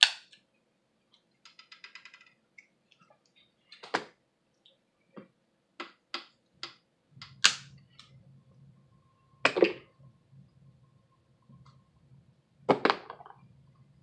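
Snow crab leg shells being cracked and snapped open by hand: a series of short, sharp cracks at irregular intervals.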